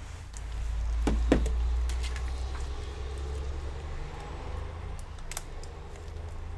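A few sharp clicks and taps of handling and a small metal tool on an opened laptop, two close together about a second in and one more near the end. Under them a low rumble swells about a second in and slowly fades.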